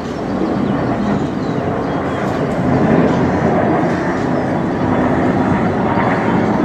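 Jet engines of a formation of HAL Kiran Mk II trainer jets flying overhead: a steady, rushing jet noise that grows a little louder about three seconds in.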